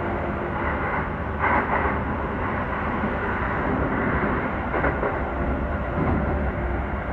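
Keio 5000 series electric train running at speed, heard from inside the car: a steady rumble of wheels on rail, with brief louder clatters about a second and a half in and again about five seconds in.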